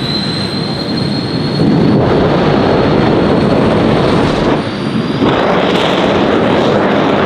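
Jet engine fitted in a Renault Twingo running, a thin high turbine whine rising slightly over a loud rushing noise. The rush swells about a second and a half in, dips briefly around four and a half seconds, then swells again.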